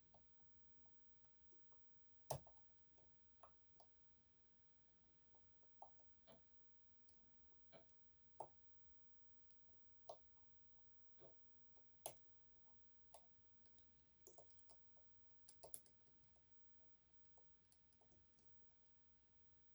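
Faint, irregular small metallic clicks and taps of a hook pick and tensioner working the unsprung sliders inside an EVVA 3KS high-security lock. A sharper click comes about two seconds in and another about twelve seconds in.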